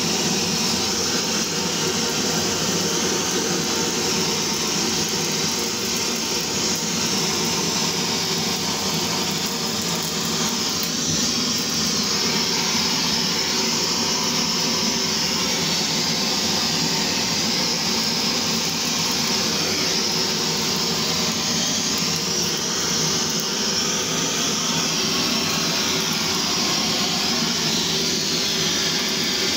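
Handheld gas blowtorch burning with a steady hiss as its flame singes the skin of a whole plucked chicken.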